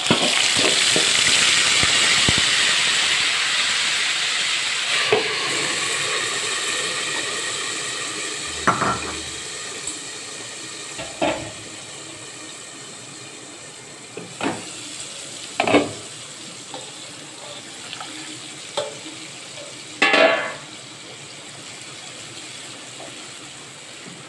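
Marinade gravy hitting hot oil in a kadai, sizzling loudly and fading gradually over about fifteen seconds as it settles. A few short knocks of utensils against the pan come through along the way.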